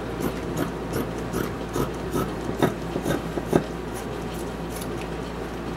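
Scissors cutting through trouser fabric: a crunchy snip of the blades through the cloth about twice a second, thinning out near the end.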